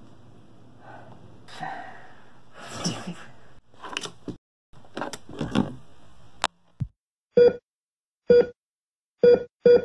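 Sniffling and wheezy, tearful breathing of someone crying, then a sharp click. After that come short electronic heart-monitor beeps, about a second apart at first and quickening near the end.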